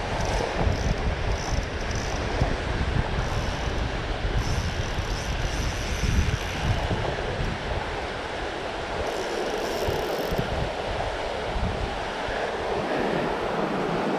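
Steady rush of a flooded creek's fast current, with wind buffeting the microphone in gusts that ease off about halfway through.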